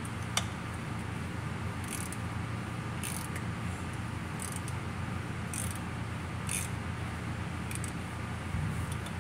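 Hand ratchet clicking in short bursts every second or so as bolts under the transmission are turned, over a steady low hum.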